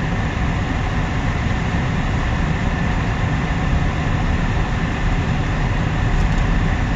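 Freight cars of a long mixed freight train rolling past, a steady rumble of wheels on rail, the train starting to pick up speed.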